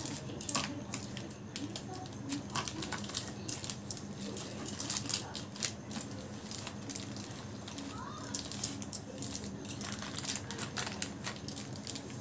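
Polythene sheet and aluminium foil crinkling in irregular short crackles as hands roll and press a wrapped log of sweet.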